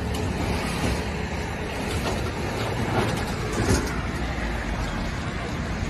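Steady low rumble of an idling motor vehicle engine, with a few knocks as plastic storage trunks are pushed onto the pickup's load bed.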